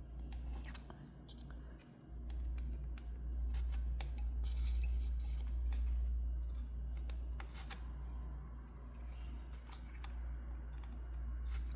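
Scissors snipping paper: a string of short, sharp cuts and clicks at an uneven pace, over a steady low hum.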